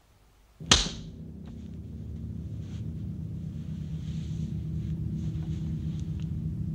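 A single sharp, loud crack about half a second in, followed at once by a low, steady drone of several held tones that slowly grows louder.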